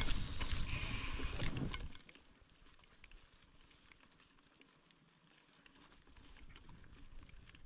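Mountain bike riding on a dry, leaf-covered dirt trail, heard from a bike-mounted camera: wind and trail noise rush on the microphone for about two seconds, then drop off sharply to quiet tyre crackling over leaves with scattered small clicks.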